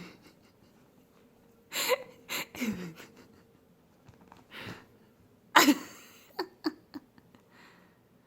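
A woman's short, wordless playful vocal noises, half a dozen brief bursts, some sliding down in pitch, the loudest about five and a half seconds in.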